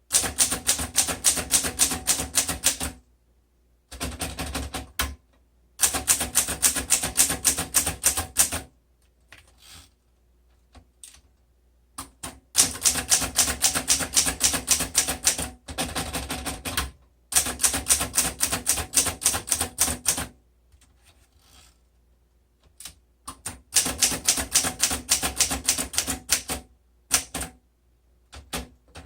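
1954 Underwood Quiet Deluxe manual portable typewriter being typed on. The keystrokes come in quick runs of about five a second, each run lasting a few seconds, separated by short pauses with a few scattered single clicks.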